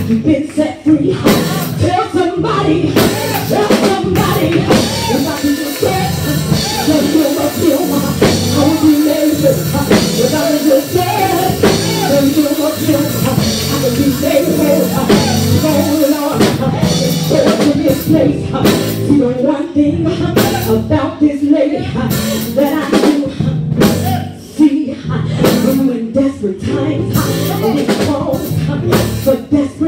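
Live church music: a drum kit and band playing while a voice sings into a microphone.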